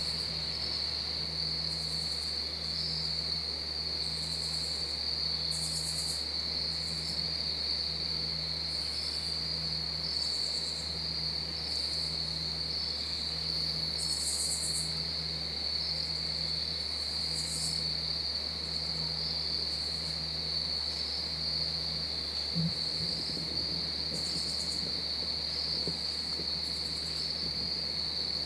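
Crickets trilling steadily, with short, higher-pitched insect buzzes coming every second or two.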